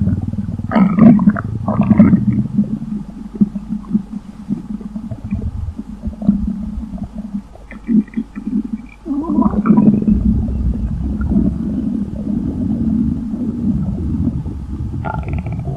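Human stomach rumbling and gurgling: a continuous low growl with irregular bubbling surges, louder about a second in, two seconds in, and again from about nine seconds in.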